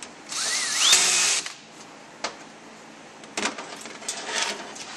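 Power drill running a solenoid mounting bolt down into an automatic transmission valve body: one run of a bit over a second, its whine rising in pitch as it spins up. A few sharp clicks and light metallic clatter follow as the valve body is handled.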